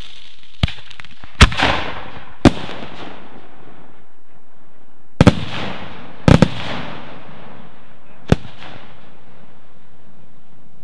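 Large cylinder firework shells bursting overhead: about seven sharp bangs, two of them in quick pairs. The loudest ones trail off over about a second.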